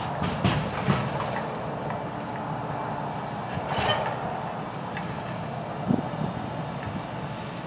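Grapple truck's engine running steadily to power the hydraulic grapple boom, with a few sharp metal knocks from the boom and grapple: two about a second in and one near six seconds.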